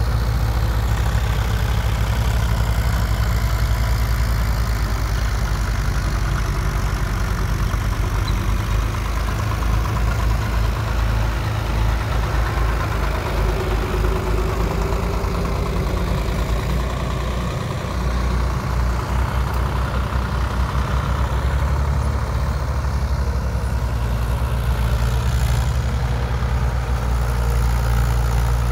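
Diesel engines of two tractors, a Mahindra 575 DI XP Plus and a Swaraj 744 FE, running while they drag implements across a field: a steady low rumble with a throbbing beat.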